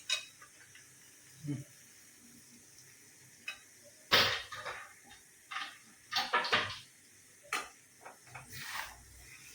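A metal spoon clinking and scraping against a cooking pan, a string of separate knocks with the loudest about four seconds in, as ingredients are added and stirred into a tomato gravy.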